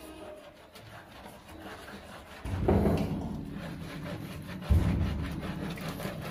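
Hands scrubbing soapy lather through a wet dog's fur in a bath, a rubbing, scrubbing sound. It turns suddenly louder about two and a half seconds in and again near five seconds.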